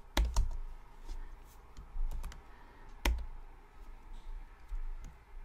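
Sparse computer keyboard keystrokes and clicks, a couple of sharp ones just after the start and another about three seconds in.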